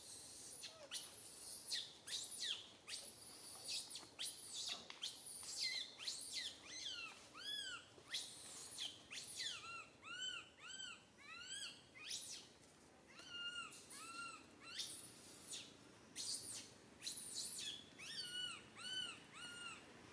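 Infant macaque crying: a constant run of high-pitched squealing calls that sweep up and down in pitch. About halfway through the cries turn into short arched calls in quick runs of two or three.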